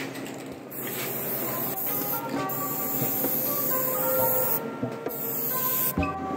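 Aerosol rattle-can paint spraying onto a freshly welded steel cross member, a hiss in bursts that pauses briefly about two seconds in and again near five seconds. Background music plays underneath.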